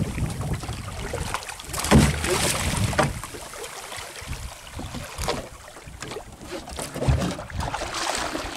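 Wind on the microphone and sea water splashing as a hooked sailfish thrashes at the surface beside the boat, with a few louder thumps and splashes.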